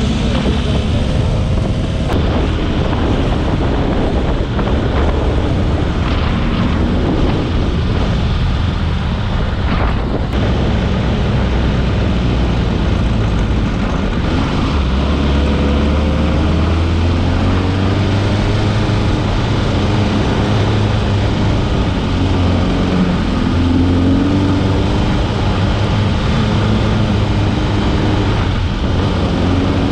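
Dune buggy engine running under load as it is driven over sand dunes, its pitch rising and falling with the throttle, with wind buffeting the microphone.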